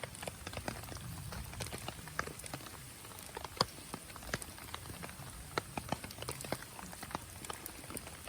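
Wood campfire crackling: irregular sharp pops and snaps over a low steady rush.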